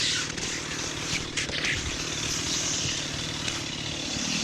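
Two-stroke chainsaw engine running steadily.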